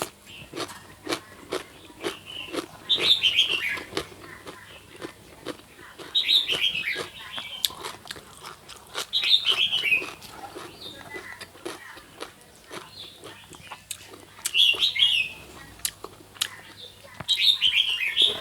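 Close-up chewing of crunchy food, crisp crunches coming about twice a second at first and then more sparsely. Birds chirp in short bursts, five times.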